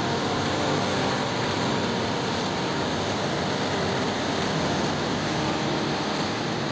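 Steady city traffic noise from a busy multi-lane street, with cars and a bus passing on the wet road.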